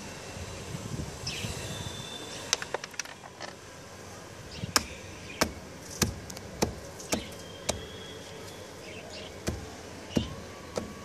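Small wooden-handled hammer knocking apart dry clods in a heap of compost and manure: a dozen or so short, sharp knocks, coming about two a second in the middle.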